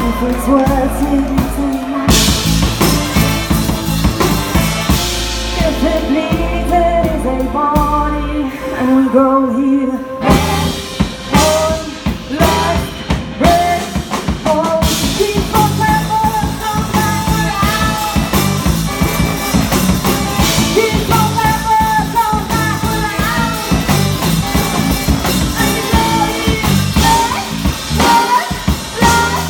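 Big band playing with drum kit behind a female singer. About ten seconds in, sharp drum hits come forward and the full band continues.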